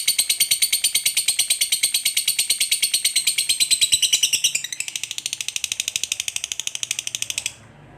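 Lovebird's long ngekek: a fast, high chattering trill of about ten sharp notes a second, held without a break. It turns quieter a little past halfway and stops shortly before the end.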